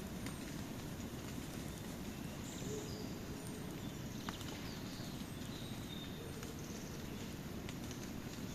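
Wood campfire burning: a steady low rumble with scattered crackles and sharp pops. Short, high bird chirps sound over it now and then.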